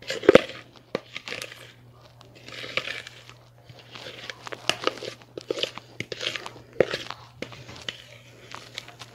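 Spatula scraping thick brownie batter out of a mixing bowl into a baking dish: irregular wet, sticky scrapes with a few sharp taps of the spatula against the bowl.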